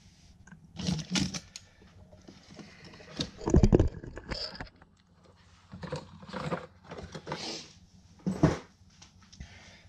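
Handling noises of a cardboard propeller box and plastic drone propeller blades being picked up and moved about, a few scattered knocks and rustles, with one louder dull thump about three and a half seconds in.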